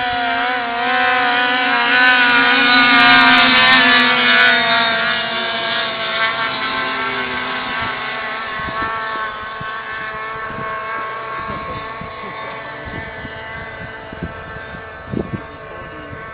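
Several racing snowmobiles at full throttle pulling away together at the start of a race. The engine drone is loudest a few seconds in, then fades steadily as the sleds race off into the distance.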